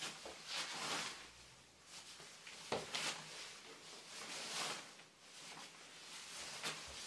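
Quiet breathy, rustling noises that swell every second or two, from a person moving about, with a couple of light sharp knocks.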